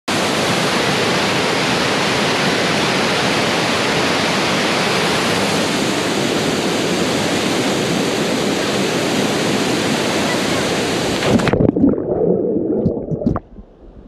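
Waterfall pouring into a plunge pool: a loud, steady rush of water. About eleven and a half seconds in the rush cuts off suddenly, and muffled splashing with a few knocks follows as the camera goes into the water.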